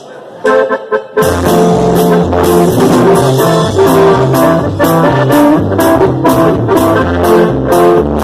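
Brass band music with trombones, a stepping bass line and a steady beat; after a short opening phrase the full band comes in about a second in.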